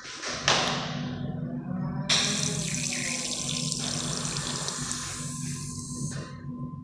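A stainless-steel automatic sensor faucet runs water onto a hand held under it: the flow starts abruptly about two seconds in, splashes steadily for about four seconds, then shuts off. A brief rustling noise comes about half a second in, over a faint steady hum.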